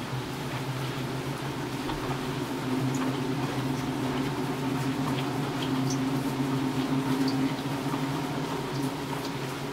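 Rain falling, with single drops ticking here and there, over a low steady hum that grows louder through the middle and eases near the end.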